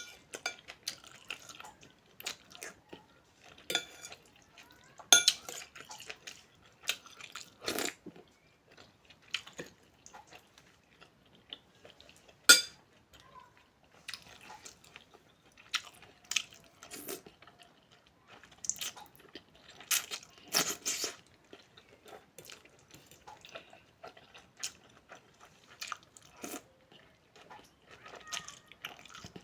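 A person eating a bowl of noodle soup: utensils click and knock against the bowl at irregular moments, with chewing in between.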